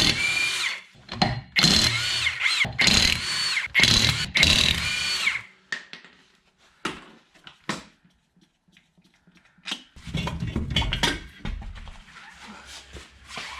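Ingersoll Rand impact wrench with a 13/16 socket running in about five short bursts, its pitch bending as it spins the lug nuts off a wheel. Light clicks and knocks follow, then a low rumble near the end.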